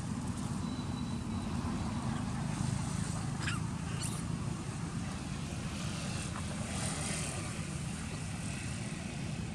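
Young long-tailed macaques give two short, high, rising squeaks, about three and a half and four seconds in, over a steady low rumble.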